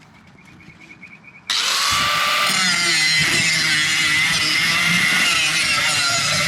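Angle grinder fitted with a cutting wheel switching on about a second and a half in and cutting steadily through a marked strip, loud and continuous.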